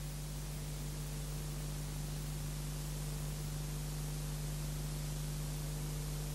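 Dead air on an old analogue broadcast tape: a steady hiss with a constant low electrical hum and no programme sound.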